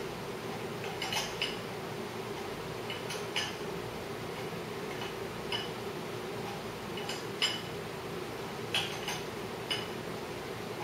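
A dozen or so light metallic clicks and clinks, irregularly spaced, from a hand-turned cam bearing installer tool being worked on a Harley Twin Cam engine, over a steady low hum.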